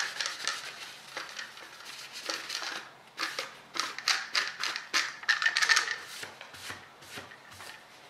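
A cloth rubbing and wiping old thermal paste off the CPU cooler, in irregular scratchy strokes that come thickest in the middle.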